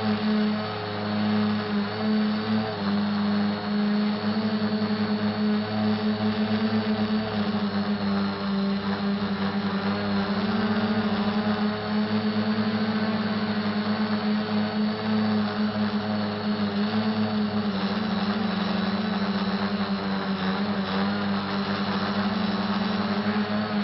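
SK450 dead-cat quadcopter's electric motors and propellers buzzing steadily in flight, a hum whose pitch and loudness waver slightly with throttle.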